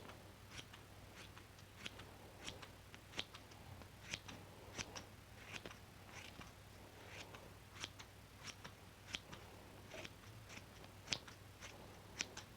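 Scissors snipping repeatedly and quietly, short sharp snips at about two a second.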